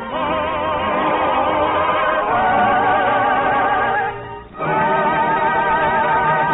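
Classically trained voices singing a sustained, vibrato-laden melody over a theatre orchestra, with a brief break between phrases about four and a half seconds in; the sound is an old radio broadcast recording with no high treble.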